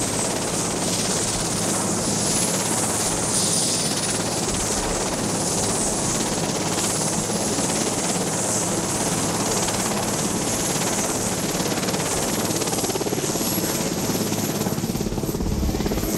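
Marine One, a Sikorsky VH-3D Sea King, running on the ground with its rotor turning: a steady drone with a thin high turbine whine that slowly rises in pitch.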